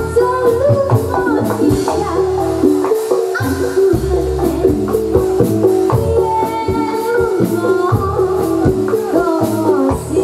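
Javanese gamelan music accompanying a jathilan dance: struck metal keys and drums playing in a steady rhythm.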